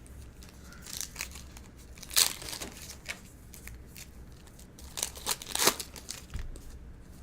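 Foil wrapper of a 2013 Bowman Draft baseball card pack being torn open and crinkled by hand, in irregular crackles with the loudest rips about two seconds in and again around five and a half seconds in.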